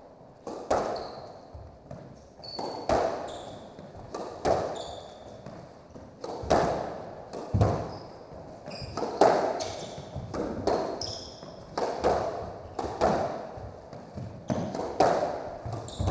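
Squash rally: the hard rubber ball struck by racket strings and slapping off the walls about once a second, each hit ringing in the enclosed court, with sneakers squeaking briefly on the hardwood floor between shots.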